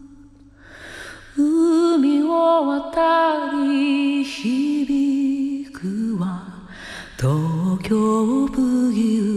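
Soundtrack music: a solo voice singing a slow melody with vibrato, in phrases broken by short pauses.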